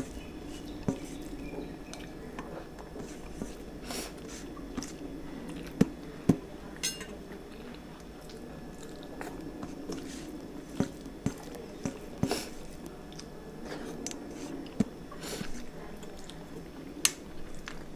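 Chewing and mouth sounds of a person eating rice and curry by hand, with scattered sharp clicks of fingers and food against a stainless steel plate.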